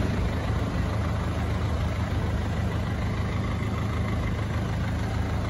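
Mazda Bongo's WL four-cylinder diesel engine idling steadily, a low even hum.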